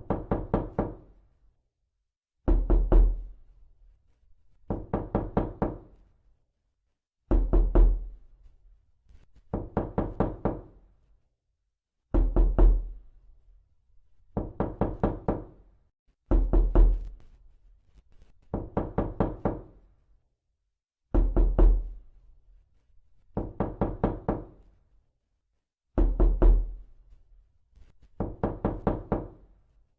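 Knocking in repeated groups of four to six quick knocks, one group about every two and a half seconds, with short silences between them.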